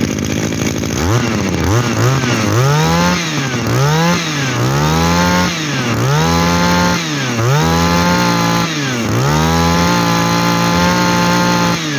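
Shindaiwa S250 25cc two-stroke brush cutter engine revved by hand at the carburetor throttle, rising from idle to high revs and falling back about seven times. The last rev is held for about two seconds before it drops back to idle near the end.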